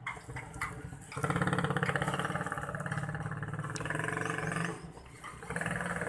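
Dromedary camel calling: a long, rapidly pulsing rumbling call lasting about three and a half seconds, starting about a second in. A shorter call follows near the end.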